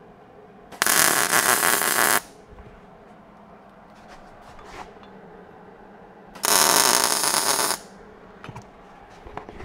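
Two tack welds on an exhaust tube: each a crackling welding arc lasting about a second and a half that starts and stops abruptly, the first about a second in and the second about six and a half seconds in, tacking a 90-degree bend into place. A few light clicks and taps fall between them.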